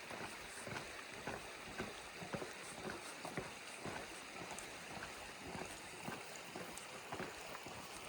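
Footsteps of a hiker walking on a trail, about two steps a second, over a steady hiss.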